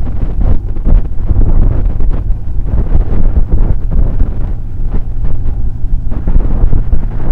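Loud, gusty wind buffeting on the microphone of a camera on a motorcycle riding at road speed, a low rumbling noise with the motorcycle's running and road noise underneath.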